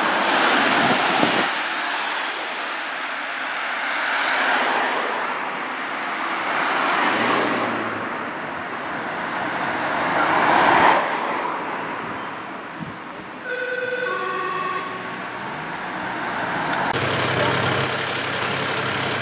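Emergency vehicles driving past with sirens, over road noise that swells and fades every few seconds. About fourteen seconds in there is a short high-then-low two-tone note. Near the end a heavy engine idles with a low steady hum.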